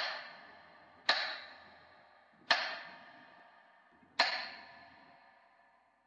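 A bell-like struck note sounded four times at slow, uneven intervals, each strike sharp at the start and ringing away over a second or so.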